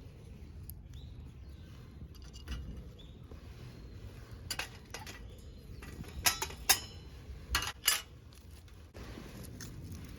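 A series of sharp clicks and clinks of hard objects, loudest in a cluster about six to eight seconds in, over a low steady background noise.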